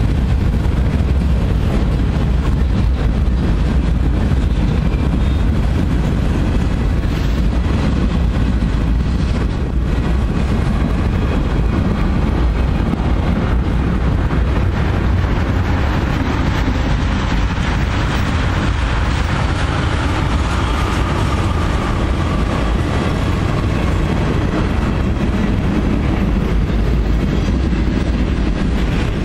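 Freight train's boxcars rolling past: a steady, loud rumble of steel wheels on rail.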